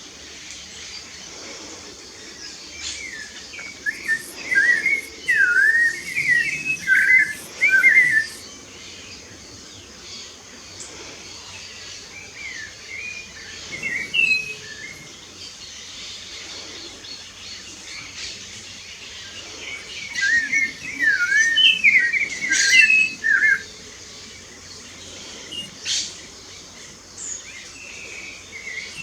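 A songbird singing two bursts of quick, varied whistled notes, a few seconds apart, with a few lone notes in between, over a faint steady outdoor background.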